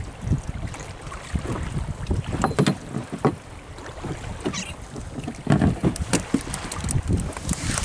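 Wind buffeting the microphone and water slapping against a small boat's hull, with scattered knocks and clicks while a hooked fish is handled and unhooked.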